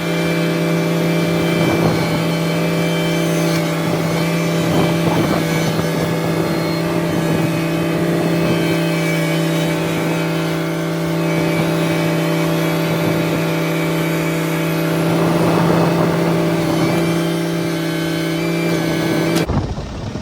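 Tractor engine running steadily at a constant speed, with no change in pitch. It cuts off sharply just before the end, giving way to wind on the microphone.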